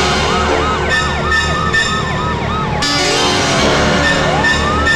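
Several vehicle sirens sounding together: one yelping in quick rising-and-falling sweeps, about three a second, while another wails with a long slow fall in pitch that swings back up near the end.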